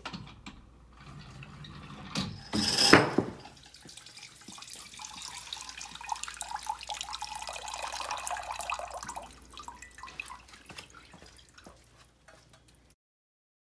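A sharp clatter of the contraption's parts knocking together about three seconds in. It is followed by water trickling and dripping through coffee grounds into a cup for several seconds, fading out toward the end.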